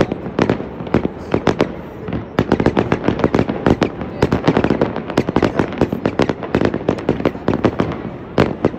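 Aerial fireworks display going off in a rapid, dense string of bangs and crackles, many per second, growing thicker about two and a half seconds in.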